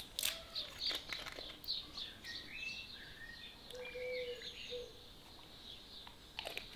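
Birds chirping and singing, with a few light clicks and taps near the start as a plastic shampoo bottle and its measuring cap are handled.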